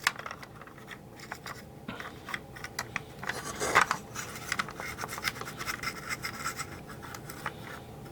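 Scratchy rubbing of a small plastic toy part being wiped down with baby oil, mixed with light clicks and taps of handling, and one longer, louder rub about three and a half seconds in.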